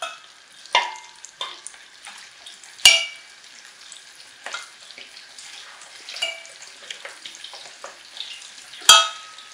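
Pieces of spice-coated goat meat deep-frying in hot oil in a stainless-steel pot: a steady sizzle full of small crackles, meat freshly added to the oil. A few sharp, ringing clinks cut through it, the loudest about three seconds in and another near the end.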